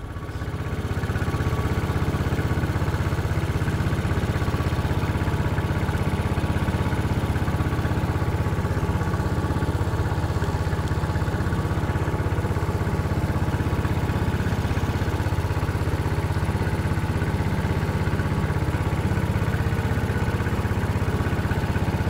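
Small motorboat engine running steadily under way, a continuous low rumble that comes up to full level within the first second or so.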